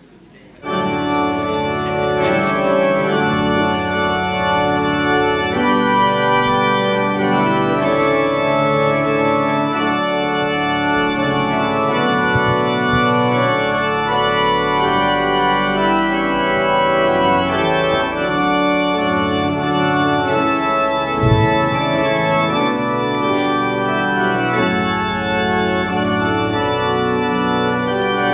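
Church organ playing slow, sustained chords as the Bible is carried in at the start of worship, starting abruptly under a second in. A single low thump sounds about three-quarters of the way through.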